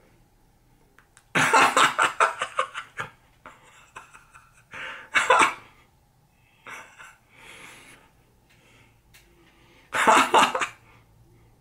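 A man laughing in three loud bursts of quick "ha-ha" pulses, about a second in, midway and near the end, with breathy sounds between.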